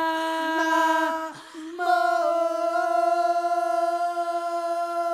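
A single singing voice holding two long, steady notes, the second one starting about two seconds in and slightly higher; it is the last of a song.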